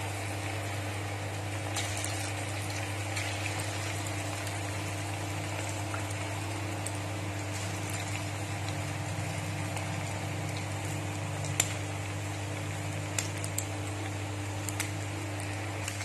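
Batter-coated chicken pakoras deep-frying in hot oil: a steady sizzle with a few sharp pops in the second half, over a steady low hum.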